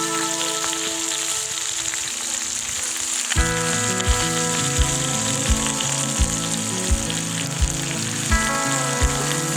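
Chicken drumsticks and potatoes frying in oil in a large skillet, a steady sizzle, under an instrumental passage of a country song; a drum beat of about three hits every two seconds comes in about a third of the way through.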